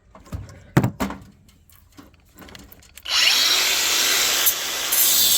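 A few sharp clicks and knocks of metal parts being handled, then about three seconds in a power drill-driver starts and runs steadily, loud, backing out screws from a microwave's housing.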